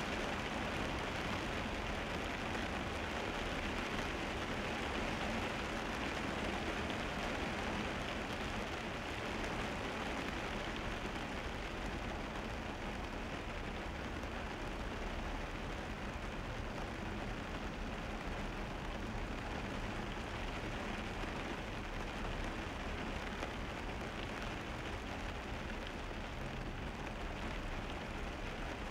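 Car driving on wet roads in the rain: a steady hiss of rain and tyres on wet asphalt over a low road rumble.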